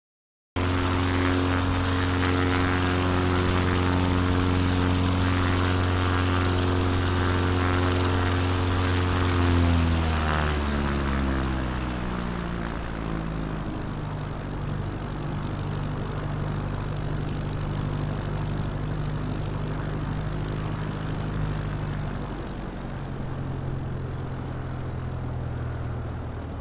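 Propeller drone of an electric radio-controlled model floatplane, holding one steady pitch. About ten seconds in it slides down in pitch over a few seconds, then settles at a lower steady pitch.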